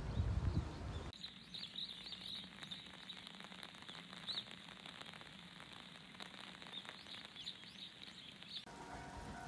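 Faint chirping of small birds over quiet outdoor background. A low rumbling noise fills the first second and cuts off abruptly.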